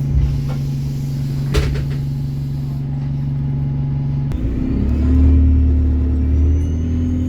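Bus engine idling with a steady hum, then a little over four seconds in the note drops and the bus pulls away, a thin whine rising steadily in pitch as it accelerates. Two short knocks sound in the first two seconds.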